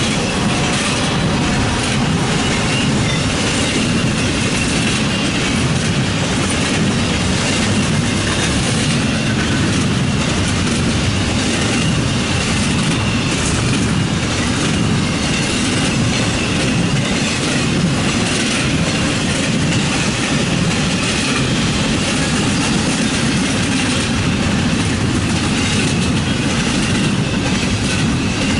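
Norfolk Southern freight train rolling past close by: steady rumble and clatter of wheels on the rails, with a faint high wheel squeal now and then.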